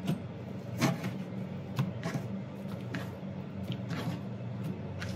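Kitchen knife chopping boiled garland chrysanthemum (shungiku) on a plastic cutting board: a handful of irregular knocks as the blade hits the board, over a steady low hum.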